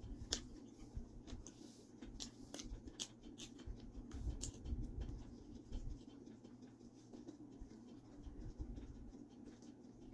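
Close-miked eating sounds of a person biting and chewing margherita pizza: soft wet smacks and small crunches of crust, faint, with irregular clicks that come thickest in the first half.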